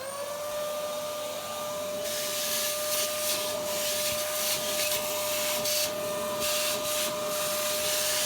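Vacuum cleaner starting up, its motor whine rising and settling to a steady pitch in the first half second. It then runs steadily, sucking loose dirt out of the inside of a tractor tyre, with the suction hiss growing louder and uneven from about two seconds in.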